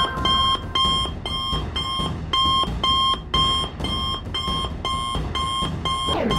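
A cartoon smartwatch ringing with an incoming call: a rapid electronic beep repeating about two and a half times a second. It stops just before the end, where a short falling swoosh comes in.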